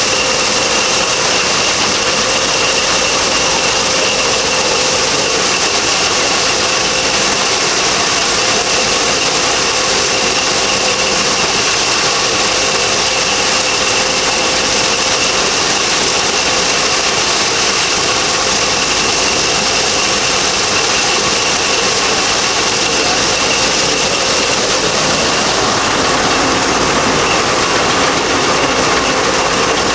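Belt-driven threshing machine running steadily while threshing grain: a loud, even mechanical din with a steady high whine running through it.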